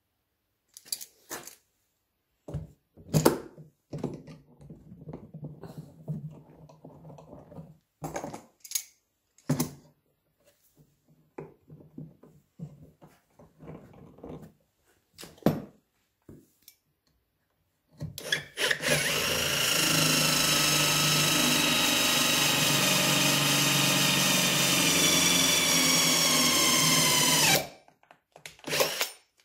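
Scattered knocks and clicks of steel F-clamps and wood pieces being set and tightened on a workbench. About eighteen seconds in, a cordless drill starts and runs steadily for about ten seconds, boring through a guide hole in a wooden jig; its pitch sags slightly just before it stops suddenly.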